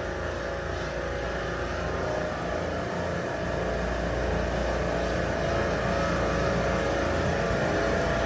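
Semi-hermetic refrigeration compressors on a supermarket rack running with a steady mechanical hum that grows slowly louder, its low end strengthening about three seconds in. One of the compressors has just been reset after tripping on its oil-pressure safety control and is running again.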